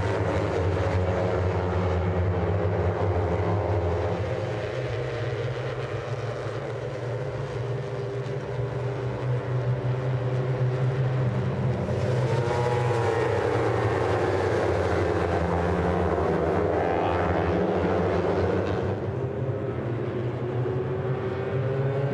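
A pack of 250cc twin-cylinder sportbikes, Honda CBR250RRs and Yamaha R25s, running on the warm-up lap. There is a steady low engine drone, and from about halfway the revs rise and fall as bikes pass.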